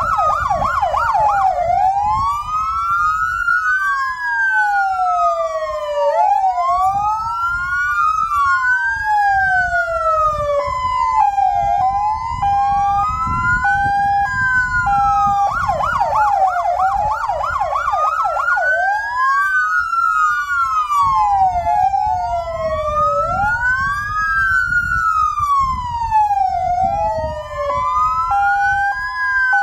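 Sirens of parked fire-brigade vehicles sounding together: several slow wails rising and falling out of step with one another. They are broken by stretches of fast yelping near the start and about halfway through, and by a steady two-tone hi-lo pattern twice. The sirens are sounded from standing vehicles as a memorial salute, not an emergency run.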